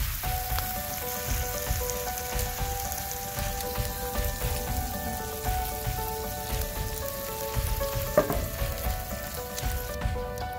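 Strips of bacon sizzling as they fry in a cast iron skillet, a steady crackling hiss. A single sharp crack about eight seconds in.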